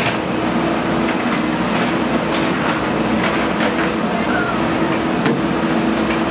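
Diesel engine of a JCB earth-moving machine running steadily, with scattered metallic clicks and clanks over the hum.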